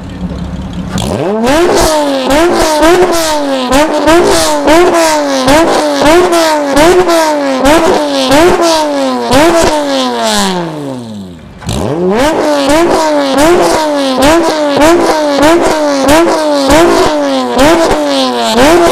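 A modified car's engine is revved over and over in quick blips, about one and a half a second, with sharp pops in between. Around the middle the revs fall away and it goes briefly quieter, then the blipping starts again.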